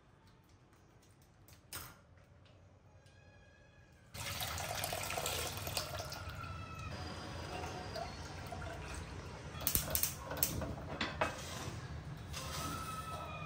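Scissors snip a plastic milk packet once, about two seconds in. About four seconds in, milk starts pouring from the packet into a stainless steel pot as a steady splashing stream, and a few sharp clinks of metal follow later on.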